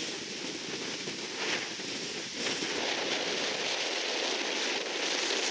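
Steady rushing outdoor ambience: an even noise with no clear tones or knocks, slightly louder over the second half.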